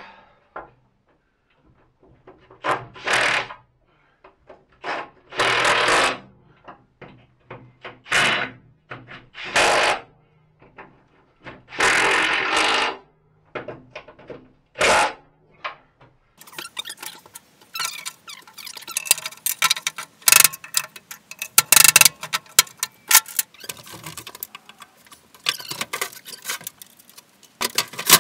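Cordless impact wrench running in about six short bursts, each under a second, as bolts on the mower deck's spindle hubs are run in. From about halfway on, a dense clatter of metal knocks and clanks as the steel mower deck is handled and flipped over.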